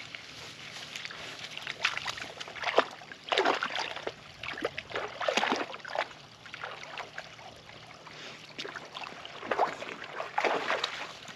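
Water splashing and sloshing in irregular bursts, several separate surges over a faint steady background.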